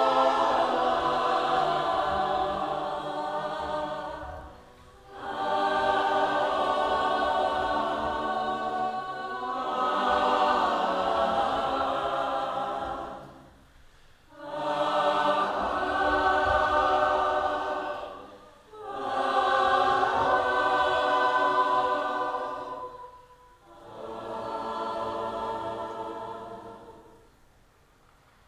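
A group of voices singing together in long held phrases, about six phrases of roughly four seconds each, with short breaks between them.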